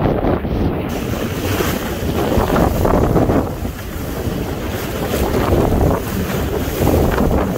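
Wind buffeting the microphone while kiteboarding at speed, with water rushing and splashing under the board.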